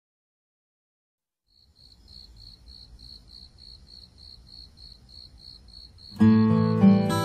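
Silence, then a faint high pulsing tone, about three and a half pulses a second, over a low hum, as a music track fades in. About six seconds in, the music comes in at full level with guitar, and the pulsing tone keeps going under it.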